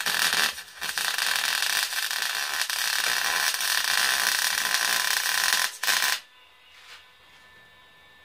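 Electric arc welding on half-inch rebar: a loud, steady hiss that drops out briefly just before a second in, stutters near six seconds in, and then cuts off sharply.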